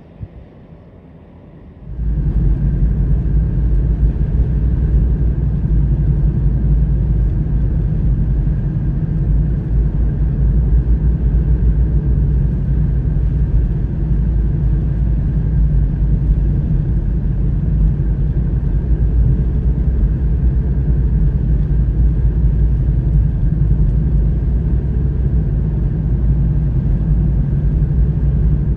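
A vehicle driving along a snow-covered highway: a loud, steady low rumble of road, engine and wind noise that starts suddenly about two seconds in.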